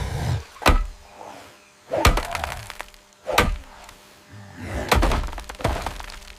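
A series of five heavy thuds with a cracking, breaking edge, coming every second or so.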